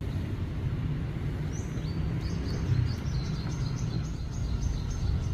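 A small bird chirping in a quick run of short, high notes over a steady low rumble.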